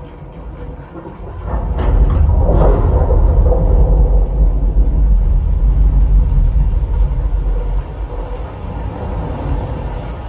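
Deep, loud thunder-like bass rumble from the Dolby Atmos demonstration disc's bass segment, played through a home-theatre speaker system with a subwoofer and heard in the room. It breaks in with a crack about a second and a half in, holds heavy for several seconds, then eases off and fades near the end.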